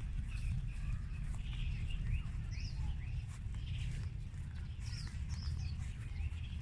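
Small birds chirping, a steady string of short, quick chirps and little pitch sweeps, over a continuous low rumble.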